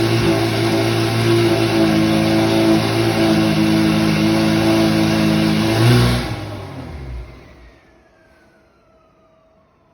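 Lamborghini V12 with an aftermarket Brilliant exhaust, idling loud and steady. About six seconds in it gives a brief surge and is switched off, the sound dying away within a second or two. A faint falling whine follows.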